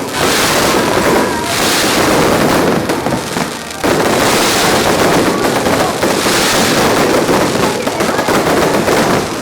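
Fireworks going off in a dense, continuous crackle of rapid bangs, dipping briefly a little before halfway and then bursting back at full loudness.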